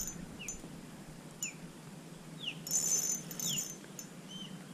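Faint bird calls: a short downslurred whistle repeated about once a second, with two brief high, buzzy sounds, one near the start and one about three seconds in.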